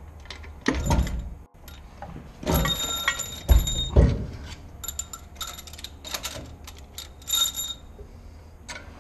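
Metal-on-metal clanks, knocks and short metallic rings from tools and parts on a V8's bared cylinder head as it is worked loose for removal, with heavier thumps about one second in and again around three and a half to four seconds.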